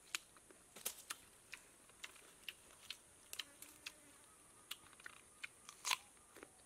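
Crisp bites and chewing of raw ambarella fruit: faint, irregular crunchy crackles, with one louder crunch near the end.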